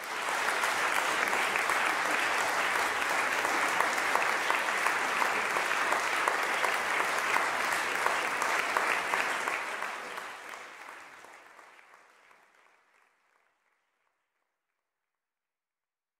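Audience applauding: dense, steady clapping that fades out from about ten seconds in and is gone a few seconds later.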